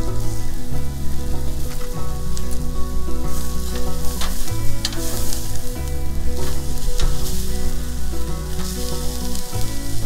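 Porterhouse steak sizzling on a portable grill set to about 600 degrees, with a few sharp clicks of the metal spatula on the grill. Background music with steady low notes runs underneath.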